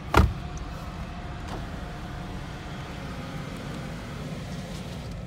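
Steady low rumble of a car running and rolling slowly, heard from inside the closed cabin, with one sharp thump just after the start.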